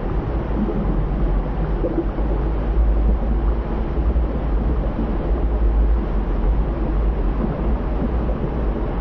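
Steady rumbling noise with a heavy deep low rumble underneath and no separate events.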